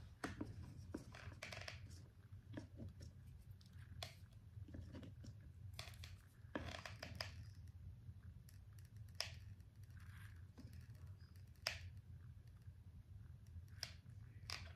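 Faint rustling and scattered light clicks as trim is pressed and glued around a papier-mâché hat, over a low steady hum.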